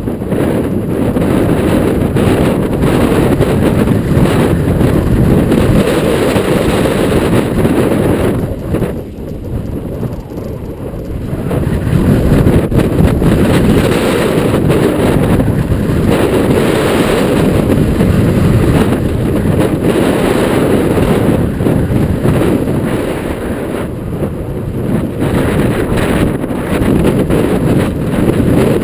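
Strong wind buffeting the microphone during a fast mountain-bike run, with rattling tyre and trail noise from the bike underneath. The noise eases briefly about nine seconds in, then picks back up.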